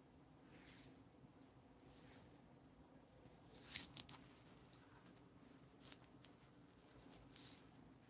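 Faint painting-work sounds: a handful of short scratchy swishes from a fine detail brush stroking acrylic onto a stretched canvas and brushes being handled on the table, with a few light clicks, loudest about halfway.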